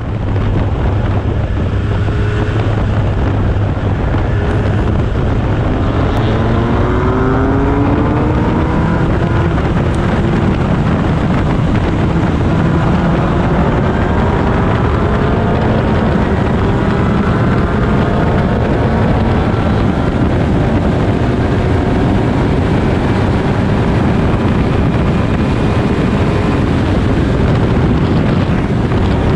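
Formula König single-seater's engine heard from the cockpit under hard acceleration, its pitch climbing through each gear several times, with heavy wind noise on the onboard microphone.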